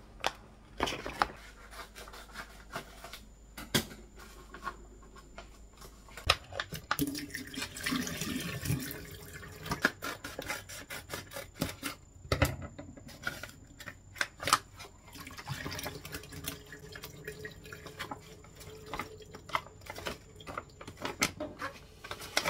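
Handling sounds at a sink: sharp clicks and rustling as a plastic pouch is handled and snipped open with scissors, with water splashing in the sink.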